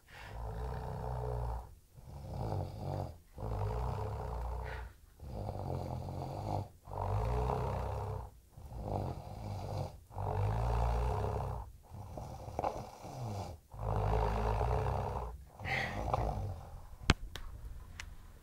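Snoring in a steady run of rattling snores, a new one every one and a half to two seconds with barely a pause between them. It weakens near the end, where a few faint clicks are heard.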